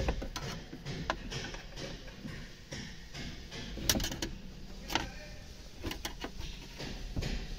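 Screwdriver working at the plastic dashboard trim and locking clip around the car stereo of a Nissan NV350 Urvan: scattered clicks and knocks of plastic and metal, the sharpest right at the start and a cluster about four seconds in.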